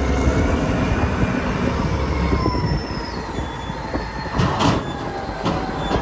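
Caterpillar 992C wheel loader's diesel engine running hard, with thin drifting whines, as its raised bucket tips dirt into a truck trailer; a louder rattle about four and a half seconds in.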